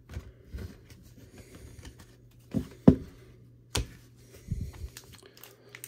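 Trading cards being handled and set down: a few soft clicks and taps, the loudest about three seconds in, over a faint steady low hum.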